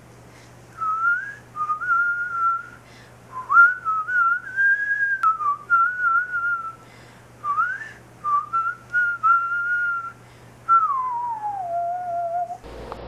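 A person whistling a tune in short phrases with little slides and wavers in pitch, ending with one long downward glide.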